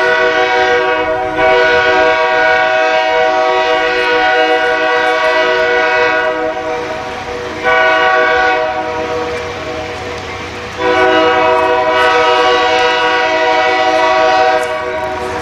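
Alco RS-18u diesel locomotive's air horn blowing the grade-crossing signal: two long blasts, a short one, then a final long one, as the train approaches. A low engine rumble builds underneath near the end.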